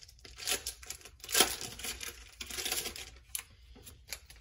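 A trading card pack wrapper being torn open and crinkled: a run of rustling, tearing bursts with the loudest about a second and a half in, thinning to a few light clicks near the end.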